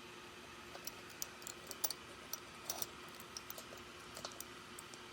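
Scattered light clicks and ticks at irregular intervals over a faint steady hum.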